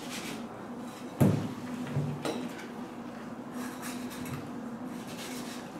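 Knife skinning a crocodile carcass on a stainless steel table: short rasps of the blade scraping between hide and meat, and a few dull knocks on the table, the loudest a little over a second in. A steady hum runs underneath.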